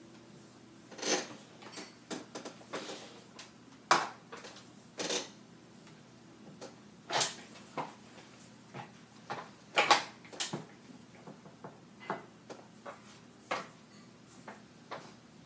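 Plastic and metal parts of a Chameleon AKT keyboard tray knocking and clicking as its mouse platform and tray are lifted and repositioned by hand: a dozen or so irregular sharp knocks and rattles, the loudest about 4 and 10 seconds in.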